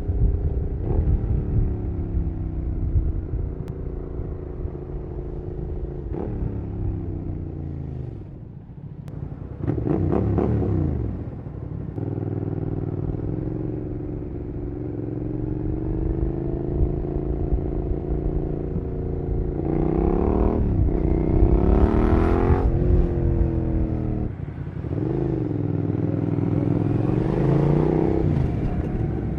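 Suzuki SV650SA's 90-degree V-twin through a Cobra SC3 aftermarket exhaust, ridden hard: the engine note repeatedly rises as it accelerates and drops back at gear changes or when the throttle is closed.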